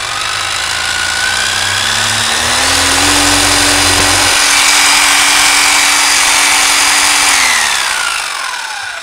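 Bosch 11263EVS rotary hammer drill's electric motor whining as it runs free. It speeds up a couple of seconds in, holds a steady speed, then winds down with a falling whine near the end as the trigger is released.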